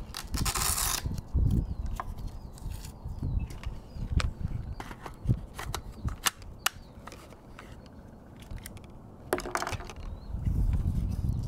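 Handling noise from a Colt LE6940 AR-15 carbine being set into a lead sled rest: scattered clicks and knocks of the rifle against the rest, with a brief rustle of cloth and hands near the start and again about nine seconds in.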